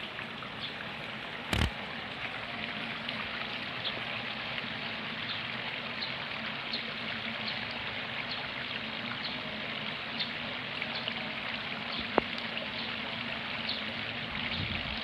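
Steady rush of splashing water from a pond aerator, with faint scattered ticks. A sharp click sounds about a second and a half in, and a smaller one later on.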